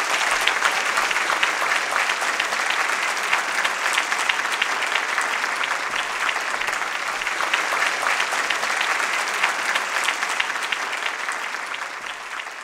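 Large audience applauding, many hands clapping densely and steadily, fading away near the end.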